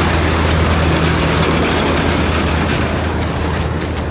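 Gleaner combine running steadily, its engine and machinery making a loud low hum and hiss. Near the end the hiss thins and a few clicks sound.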